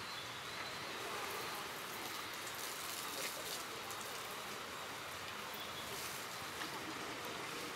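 Water from a garden hose spraying and splashing onto an elephant and the wet ground: a steady hiss of running water.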